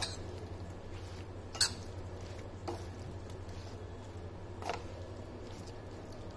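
A spoon stirring and tossing spice-coated jackfruit pieces in a stainless steel pan: soft squishing of the wet masala with a few light knocks of the spoon against the pan, the sharpest about a second and a half in.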